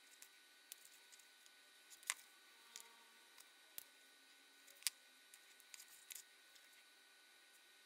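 Scattered small clicks and snips from wire cutters working thin electrical wires, the two sharpest about two seconds and five seconds in, over near-silent room tone.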